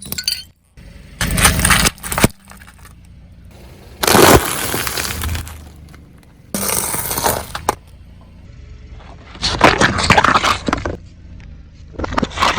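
A car's tyres crushing brittle objects: a run of separate crunching, cracking bursts, each a second or two long, with short pauses between them.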